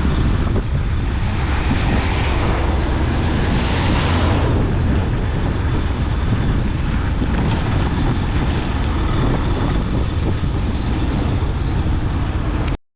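Steady rumble and rushing noise of a vehicle travelling along the road, with wind on the microphone. It breaks off abruptly for a moment near the end.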